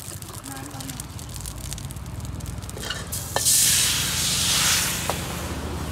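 Banh xeo batter ladled into a hot wok sizzles loudly about halfway through, strongest for a second or so, then eases off. Two short metal clinks ring out, one just as the batter goes in and one about two seconds later.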